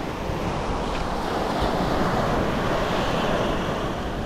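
Steady rushing noise of surf and wind buffeting the microphone.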